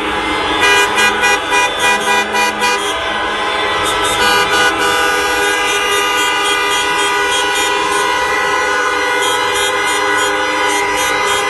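Many car horns sounding together in a sustained chorus of steady tones, the traditional horn salute at the close of a classic car show. For the first few seconds one horn toots in quick repeated blasts, about three a second, over the held horns.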